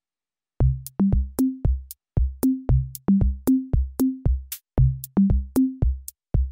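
Electronic background music starting about half a second in: a drum-machine beat of sharp ticks over deep pitched bass-drum notes that repeat a short rising three-note pattern.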